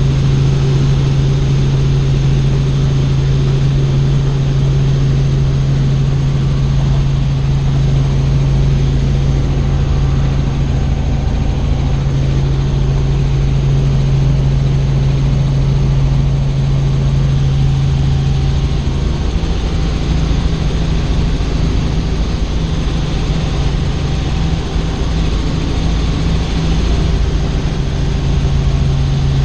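Tour helicopter's rotor and engine running with a loud, constant low drone over a steady rush. About two-thirds of the way in, the drone turns uneven and flickering.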